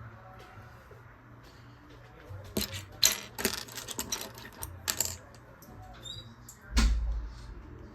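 Handling noises from an unboxing: a run of sharp, small clicks and rattles in the middle, then one heavier thump about seven seconds in.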